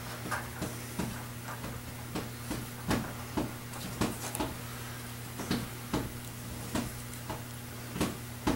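Irregular light clicks and taps of small metal parts, a pulley among them, being handled on a steel workbench, over a steady low hum.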